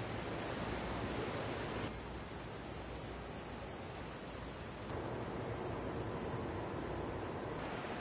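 Night insects chirring in a steady, high-pitched drone over a faint outdoor hush. The chirring cuts in suddenly about half a second in, rises slightly in pitch about halfway through, and cuts off suddenly near the end.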